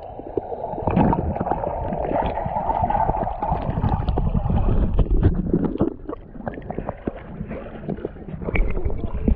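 Lake water splashing and sloshing as a person wades in, with a steady rush for the first five or so seconds, then quieter, irregular splashes.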